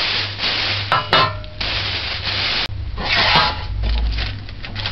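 Greaseproof paper rustling and rubbing against a metal loaf pan as hands smooth it in to line the pan, in long scraping strokes with a couple of light clicks.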